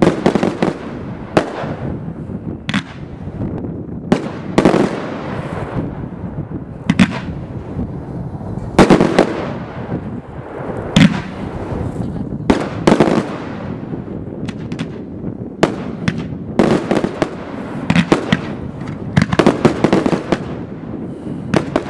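Aerial firework shells bursting with sharp bangs at irregular intervals, over a continuous noise between them, with the loudest bangs about halfway through and a dense run of bursts near the end.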